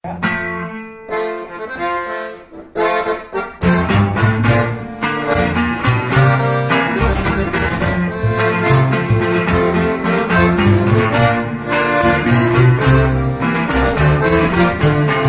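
Norteño band instrumental intro. A button accordion plays alone for the first few seconds. At about three and a half seconds the full band joins, with guitar and a tololoche (upright bass) playing a strong bass line.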